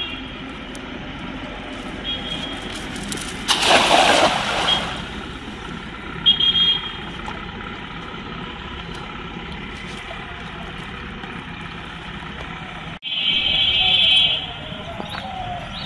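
A cast net splashing down onto pond water about four seconds in, over a steady background hum. Twice, a short high horn-like tone sounds: once around six seconds in and again for about a second later on.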